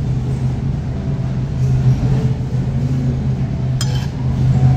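A metal spoon working through beef on a cast-iron sizzling plate, with one sharp ringing clink of spoon on the iron near the end, over a steady low hum.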